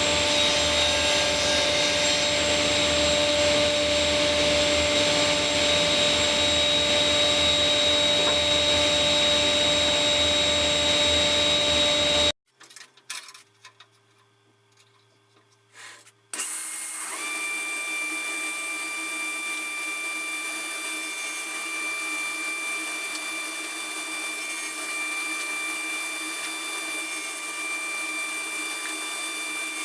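Workshop machine running steadily with a whine, cut off abruptly about twelve seconds in. After about four seconds of near silence with a few small knocks, a second, slightly quieter steady machine sound with a higher whine starts and keeps going.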